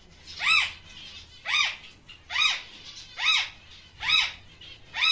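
A caged pet parrot squawking over and over, six harsh calls about a second apart, each rising and falling in pitch: it is scolding its keeper.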